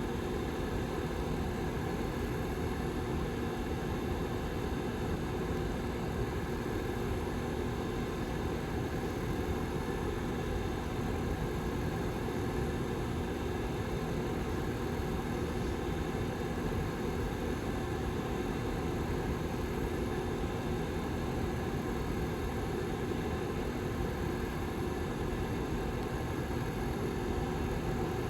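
Back fan of a Lasko 755320 tower heater running steadily: an even rush of air with a low, constant hum in two tones.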